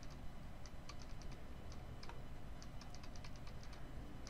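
Computer keyboard key tapped over and over, scattered clicks at first and then a quick run of about eight a second, repeating the duplicate command to copy a MIDI part along a track in the DAW.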